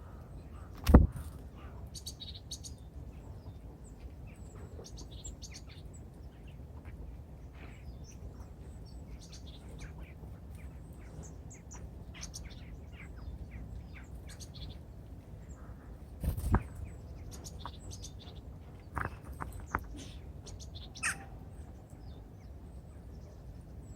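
Small birds at a feeder giving short high chirps and calls throughout, broken by a few sharp knocks, the loudest about a second in and more later on.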